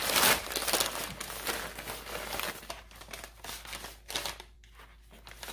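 Tallow-soaked pink butcher paper and aluminium foil crinkling and rustling as a brisket is wrapped by hand, loudest at the start and settling to softer, scattered crinkles after about four seconds.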